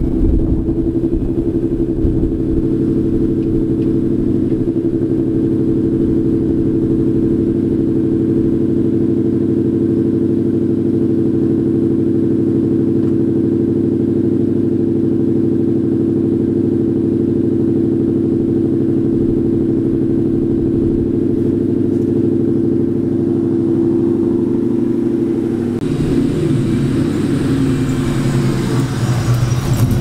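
Cammed 1996 Mustang GT 4.6 L V8 with long-tube headers, an off-road H-pipe and Borla S-Type mufflers, idling steadily. Near the end the sound changes as the car pulls away.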